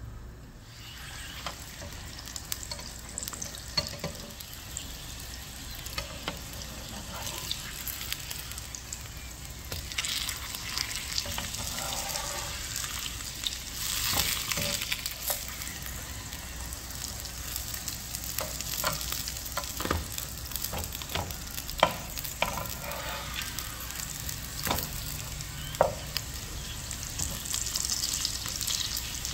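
Stuffed flatbreads frying in shallow vegetable oil in a pan on medium-low heat: a steady sizzle, with sharp clicks and pops scattered through it.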